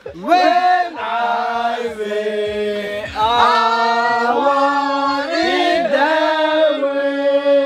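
Several voices singing together in long, held notes.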